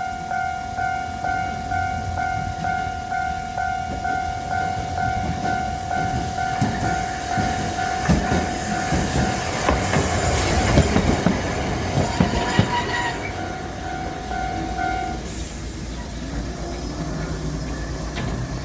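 Japanese level-crossing alarm ringing its steady two-tone kan-kan while a Kagoshima City Tram low-floor tram, No. 7501, passes over the crossing with its wheels clicking over the rail joints. The passing is loudest about 8 to 13 seconds in. The alarm stops about 15 seconds in.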